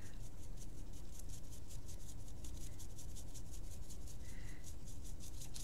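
Faint scratching and rubbing of a paintbrush working dark paint into the grooves of a small 3D-printed resin pumpkin, over a low room hum.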